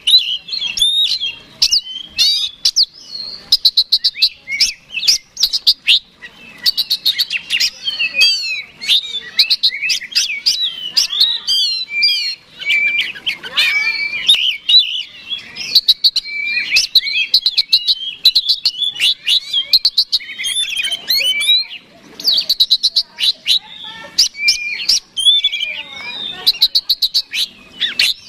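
Oriental magpie-robin singing non-stop in a combative mood: a rapid, varied stream of whistled glides mixed with fast rattling trills and sharp clicking notes.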